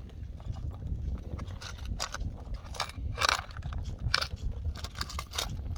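Irregular light clicks and knocks, a few seconds apart, over a steady low rumble of wind on the microphone.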